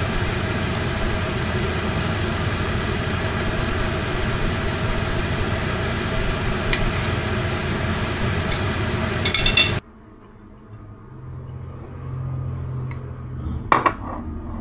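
Kitchen range hood fan over the stove running with a steady whir, with a few light clicks of a spoon against a nonstick pan. It cuts off abruptly about ten seconds in. What follows is a quiet room with a low hum and a sharp clink of a spoon against a plate near the end.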